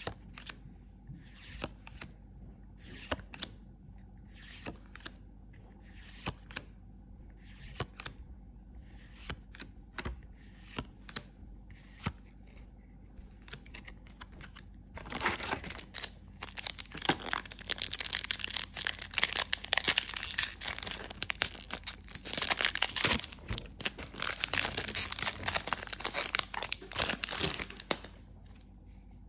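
Trading cards being flicked through one at a time, with short card snaps about once a second. About halfway through, a foil booster-pack wrapper is torn open and crinkled loudly for over ten seconds.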